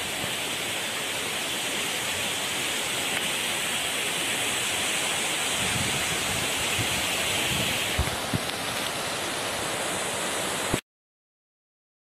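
Steady rush of a waterfall and its stream in a rocky gorge, with a few low bumps about eight seconds in; it cuts off abruptly near the end.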